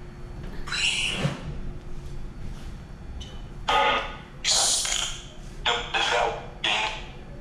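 Spirit-box app (Necrophonic) playing through a phone speaker: several short, choppy bursts of static and garbled voice-like fragments, one about a second in and a quick run of five more in the second half.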